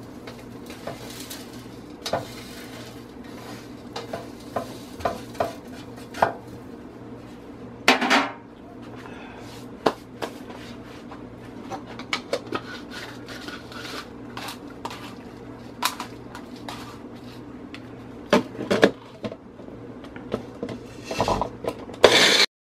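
Scraping and clinking as dried, crumbled seasoning is scraped off a metal baking sheet into a small blender cup, with knocks of the cup and its blade lid being handled. Just before the end there is a short loud burst as the cup is pressed down onto the Magic Bullet base, and it cuts off abruptly.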